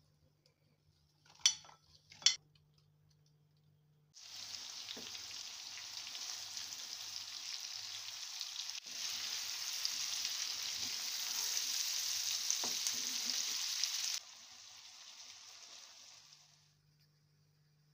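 Two sharp clinks of a metal spoon against a bowl. Then okra frying in oil in a pan, a loud steady sizzle as a wooden spatula stirs it. The sizzle drops suddenly to a quieter one and dies away near the end.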